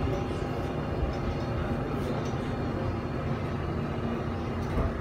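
Seoul subway train heard from inside the passenger car: a steady low running noise with a faint hum above it.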